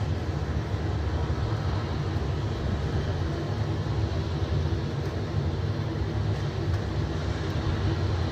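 Four rooftop air-conditioning units running with a very loud, steady low drone and a faint constant hum of tones above it.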